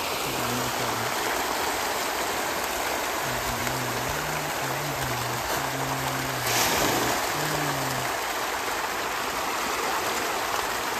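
A dense shoal of farmed fish thrashing and splashing at the pond surface in a feeding frenzy on scattered feed pellets: a continuous rushing, rain-like splashing, with a louder surge about six and a half seconds in.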